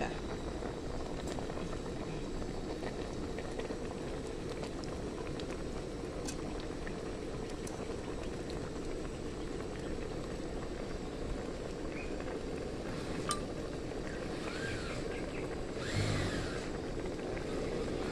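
Pot of mushroom curry boiling hard: a steady bubbling hiss, with a couple of light clicks along the way.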